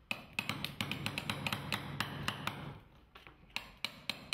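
Quick light taps like a small hammer striking, about six or seven a second, with a short break about three seconds in.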